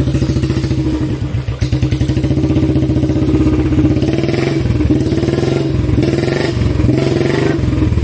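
Royal Enfield Bullet 350's single-cylinder engine running with a steady, rapid thump. From about halfway it is revved in several short bursts, the pitch rising with each, as the bike is worked over stream-bed rocks.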